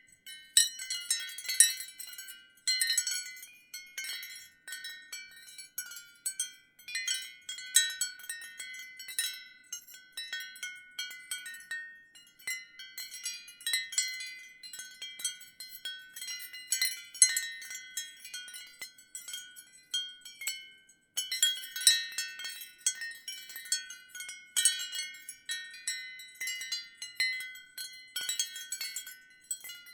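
Ceramic wind chimes clinking at random, their high ringing notes overlapping one another, with brief lulls about twelve and twenty-one seconds in.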